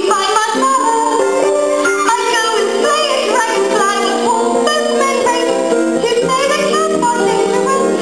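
A musical-theatre song: young voices singing a melody over instrumental accompaniment, at a steady level.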